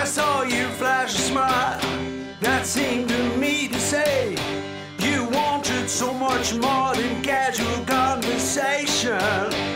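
Country-rock music with a guitar lead over a full band.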